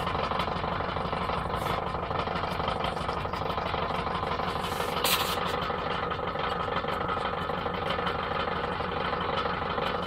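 Repurposed refrigerator compressor running steadily with an even hum as it pumps air into its tank. A brief hiss is heard about five seconds in.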